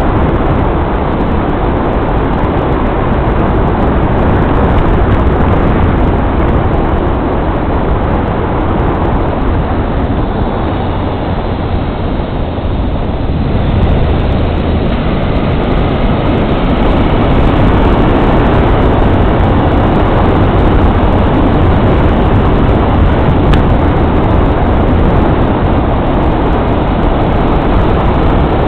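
Steady road and running noise of a vehicle driving, with a slight lull about halfway through.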